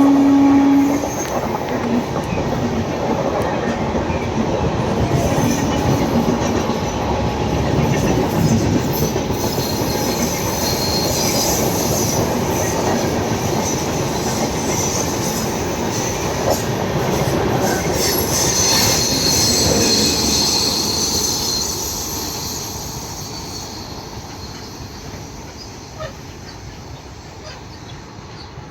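A train rolling past on the rails with a continuous rumble and wheel clatter and, around two-thirds of the way through, a high wheel squeal; it then fades away as it recedes. A steady locomotive horn note cuts off about a second in.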